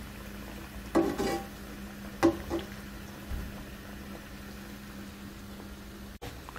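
Hot oil sizzling and bubbling steadily as wheat-flour biscuits deep-fry on low heat. A metal slotted spoon clinks against the pan about a second in and again just after two seconds.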